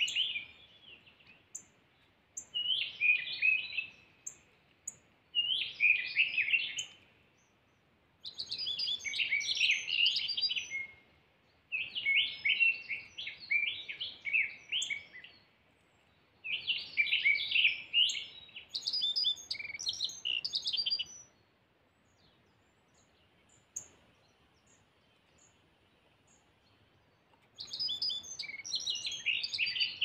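Bunting song: short phrases of quick, high twittering notes, repeated about seven times with brief pauses, then a longer pause of several seconds before the last phrase.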